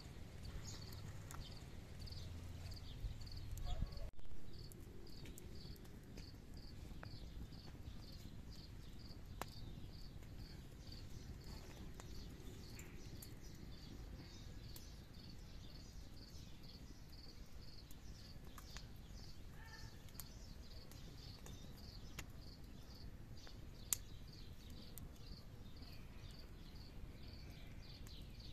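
Wood campfire burning with occasional sharp crackles and one louder pop about 24 seconds in, over a steady high insect chirping about twice a second. A low rumble and knocking fill the first few seconds.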